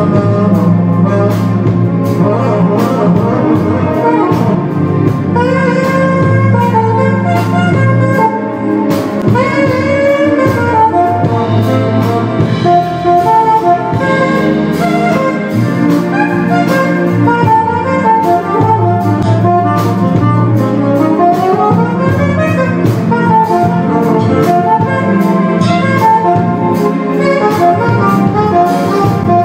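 Live band playing: a saxophone carries the melody over keyboard, electric bass and a drum kit, with a quick upward run about two-thirds of the way through.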